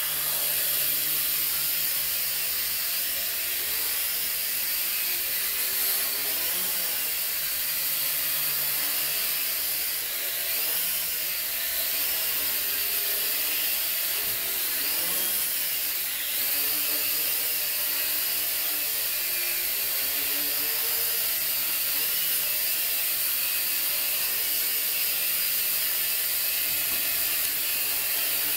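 J Perkins Twister toy quadcopter's four small electric motors and propellers whining in flight, the pitch wavering up and down as the throttle changes.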